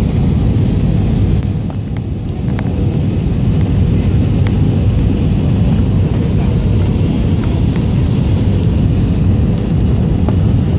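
Cabin noise of a jet airliner on its landing approach: a steady low rumble of engines and rushing air, dipping slightly about two seconds in.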